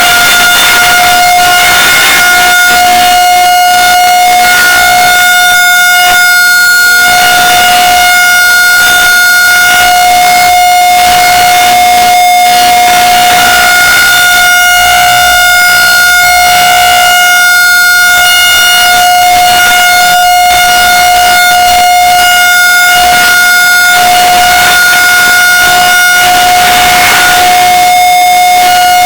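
Mock Emergency Alert System alarm: a loud, steady single-pitch attention tone held without a break.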